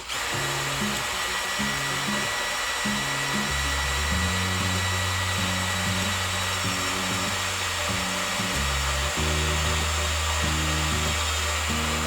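A power tool's electric motor whirring steadily at a constant speed, with background music.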